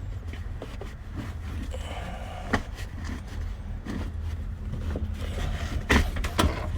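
Handling noises from a car's rear seat as its seat belt is worked through a small hole in the seat: light scraping and rustling, with a few sharp knocks, the loudest of them near the end. A steady low rumble runs underneath.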